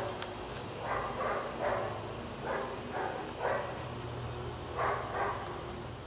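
A dog barking about eight times, in twos and threes, over a steady low hum.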